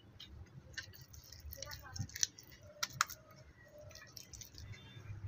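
Hands rubbing wet spice paste into a scored fish on a steel tray: quiet, scattered wet clicks and squelches of fingers on fish and metal, bunched around two and three seconds in.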